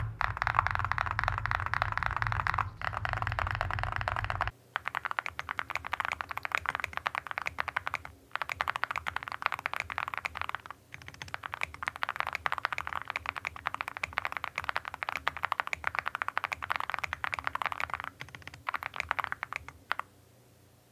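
Fast typing on a mechanical keyboard fitted with full metal keycaps: a dense run of clacking keystrokes. About four and a half seconds in, the sound changes from a thicker clatter over a low hum to crisper, more separate keystrokes. The typing pauses briefly a few times and stops near the end.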